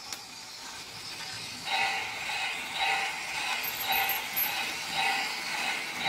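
Model railway steam locomotive and its freight wagons rolling past close by, a rhythmic clattering that starts about two seconds in, over a faint steady hiss.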